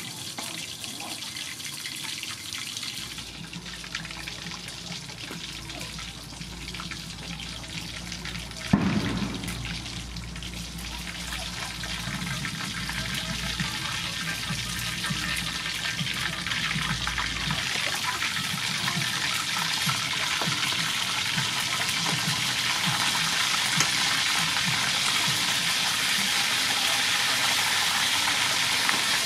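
A large whole fish sizzling as it fries in hot oil in a wok, the sizzle growing louder in the latter part. About nine seconds in there is one sudden loud splash or knock.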